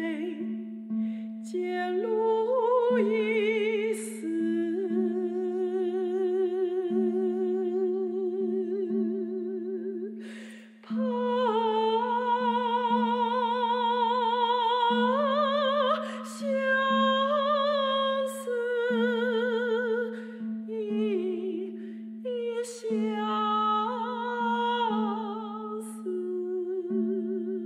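Mezzo-soprano singing a slow line with wide vibrato over a steady, low sustained synthesizer note, with a short pause in the voice about ten seconds in.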